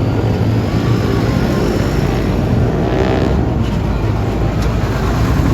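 Heavy diesel engine of a tour bus running close by, a steady loud rumble.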